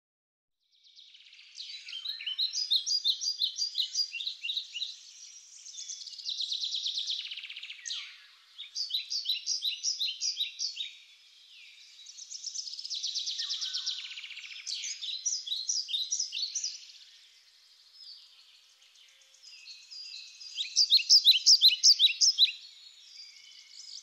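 Songbird song: phrases of quick, high repeated notes alternating with buzzy trills, each lasting two to three seconds with short pauses between. It begins about a second in, and the loudest phrase comes near the end.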